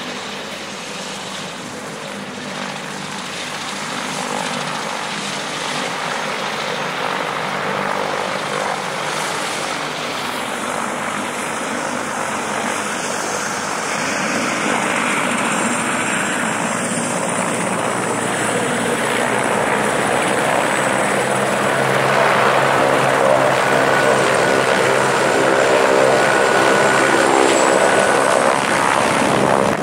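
Helicopter flying nearby, its rotor sound growing steadily louder as it comes closer.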